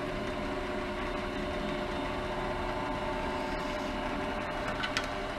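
South Bend 13" x 40" tool room lathe running steadily on its 3/4 hp three-phase motor and flat belt drive, with the power cross feed engaged. A couple of light clicks near the end.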